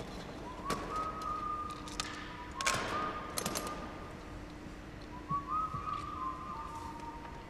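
Someone whistling a slow tune in long held notes. Sharp clicks and a clatter come through it, loudest around three seconds in, as a wooden box and small objects are picked up off a wooden floor.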